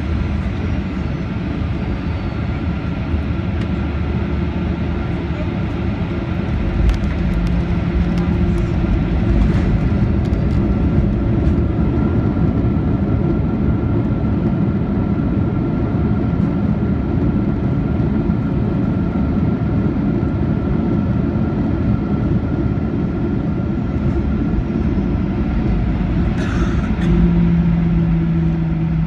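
Cabin noise of a Skymark Boeing 737-800 rolling along the runway and taxiway after landing: the steady run of the jet engines and the rumble of the airframe and wheels, heard from inside the cabin.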